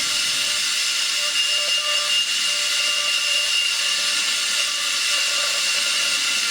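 Salyut-001 receiver's FM section tuned off-station: steady inter-station hiss from its loudspeaker, with a thin high whistle running through it.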